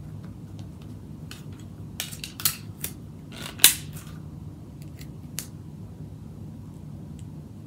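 Sharp clicks and snaps from handling craft materials close to the microphone: a quick run of them about two to four seconds in, the loudest near the middle, and one more a little later, over a steady low hum.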